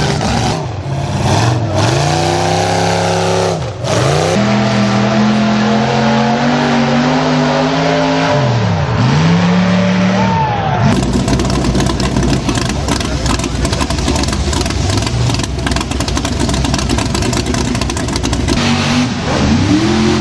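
Vehicle engine revving, its pitch repeatedly climbing, dropping sharply and climbing again. From about halfway through, a loud steady rushing noise takes over.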